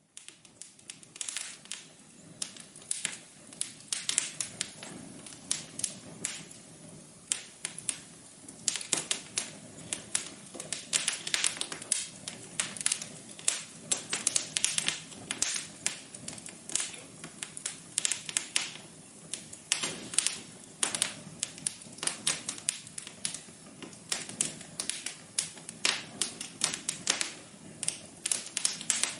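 Wood fire crackling in a fireplace: a dense, irregular run of pops and snaps over a faint steady hiss.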